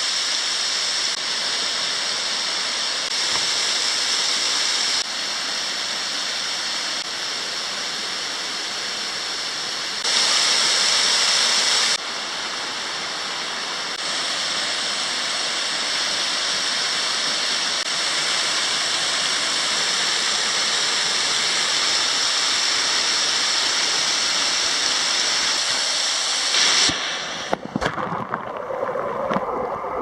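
Waterfall spilling down a rock face into a pool: a steady rush of falling water, its level jumping up or down at each cut. Near the end the rush gives way to a duller, uneven sound with a few sharp knocks.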